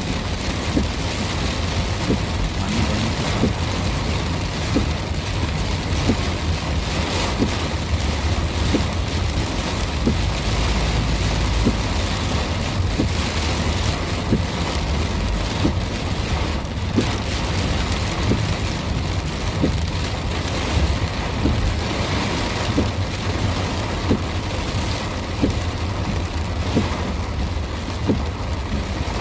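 Heavy rain pattering on a car's roof and windshield, heard from inside the moving car, with countless small drop ticks over a steady low rumble of the car on the wet road.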